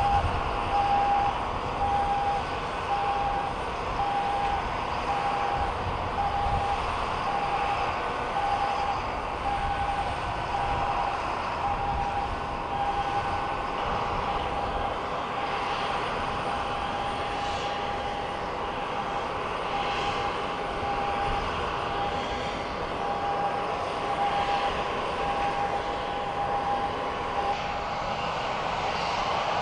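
Jet airliner's engines running on the ground: a steady rush and whine. Over it a run of short, evenly spaced beeps repeats, fading for a few seconds past the middle and then returning.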